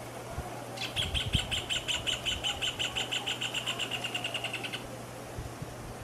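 Rufous hornero singing its loud, rapid run of repeated notes, about eight a second for some four seconds, starting about a second in and fading toward the end.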